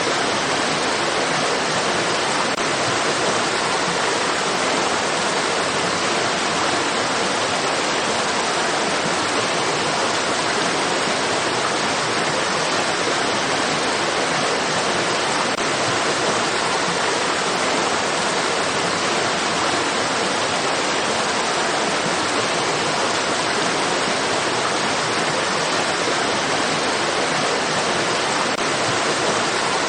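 Flowing water rushing steadily: an even, unbroken hiss with no splashes or changes.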